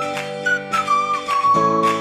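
Background music: a flute- or whistle-like melody with slides between notes over sustained chords and a plucked accompaniment.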